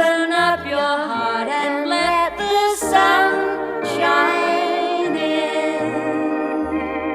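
Music: the closing bars of a 1950s pop record, voices singing the end of the last line over a small band, then a held final chord with bass notes stepping beneath it.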